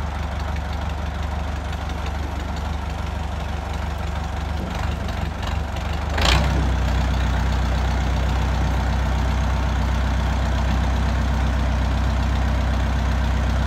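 Massey Ferguson EX50 tractor-loader engine running steadily as its front-loader bucket is lowered. About six seconds in there is a short, sharp burst of sound, after which the engine runs louder and more evenly.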